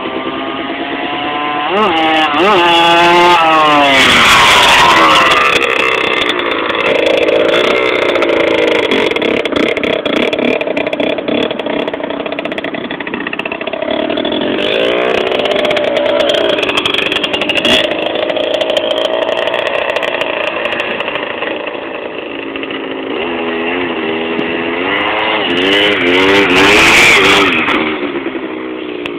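Small two-stroke motorcycle engine revving up and down as the bike rides by. It is loudest about four seconds in and again near the end.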